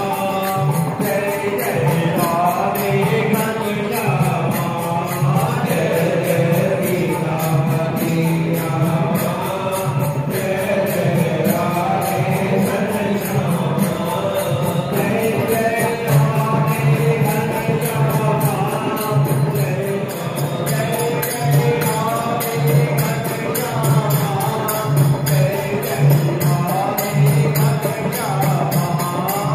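Devotional group singing, a Hindu bhajan, carried by a steady beat with quick, even jingling percussion.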